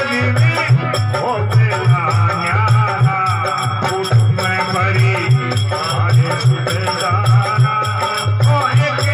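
Male voice singing a Hindi devotional bhajan to harmonium accompaniment, over a steady beat of rattling hand percussion and low drum pulses.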